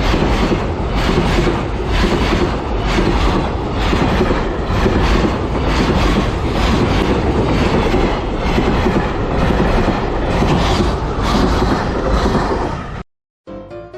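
Freight train passing close by, its wagon wheels clacking over the rail joints in a steady, repeating rhythm. The train sound cuts off abruptly near the end.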